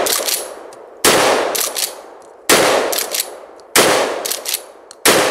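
Pump-action shotgun fired in quick succession, one shot about every second and a quarter, each with a fading echo. Short metallic clacks follow each shot as the pump is worked.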